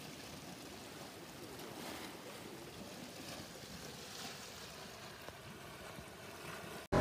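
Faint, steady hiss and gurgle of hot-spring water flowing and bubbling up from a spring vent. Right at the end it cuts abruptly to something much louder.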